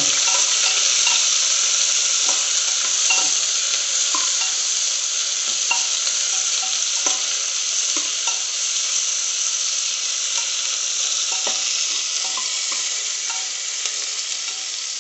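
Sliced onions sizzling loudly in hot oil in a pressure cooker pan, frying until they turn reddish, while a steel spoon stirs them and clicks and scrapes against the pan now and then.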